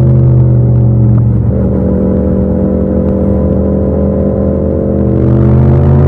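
Yamaha MT-07's 689 cc parallel-twin engine running in fourth gear, its pitch sinking gently as the bike slows, with a change in the note about a second in, then steadying and rising again near the end.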